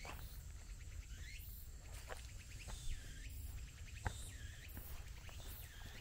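Footsteps on a forest trail, with a bird repeating a short swooping call about once a second and a faint steady high insect drone behind.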